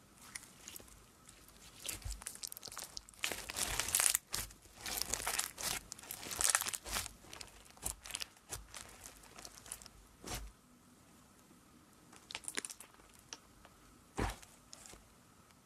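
Orange glitter slime packed with clear beads being squeezed, stretched and pressed by hand, giving irregular crackling and crunching. It is densest a few seconds in, with two single sharp pops later on.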